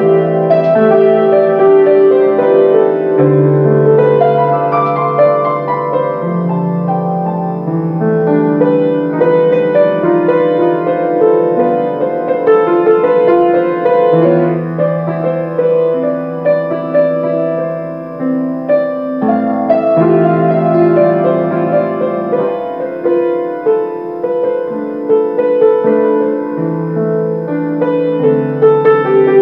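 Grand piano played solo: a melody over chords, with long-held bass notes that change every few seconds.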